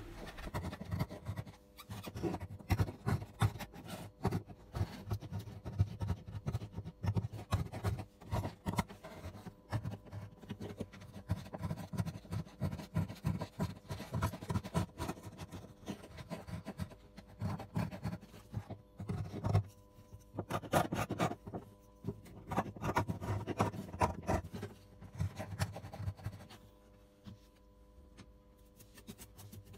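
Hand scraping and rubbing old glue residue off an acoustic guitar's top, in quick, irregular strokes that stop near the end.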